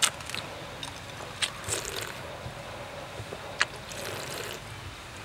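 A person sipping and slurping a liquid avocado dessert from the rim of a bowl, in short slurps with a few sharp clicks between them.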